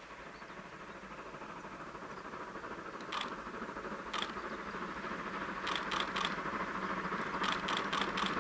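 Steam locomotive and its train approaching from a distance, a steady rushing running noise growing louder throughout. Over it, sharp clicks: one about three seconds in, another a second later, then two quick runs of four or five clicks near the end.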